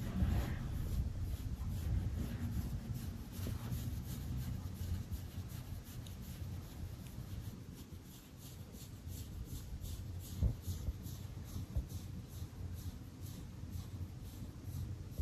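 Scratchy crunching strokes, a few a second, over a steady low rumble, with one louder knock about ten and a half seconds in.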